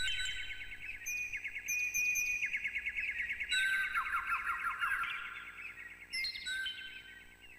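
Birds chirping in rapid trills of short repeated notes, with a lower, falling trill about four seconds in; the calls thin out near the end.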